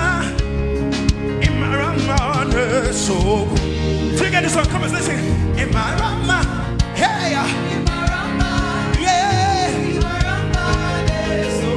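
Gospel praise-and-worship music: a singer with a wavering, ornamented voice over a band's bass and a steady drum beat.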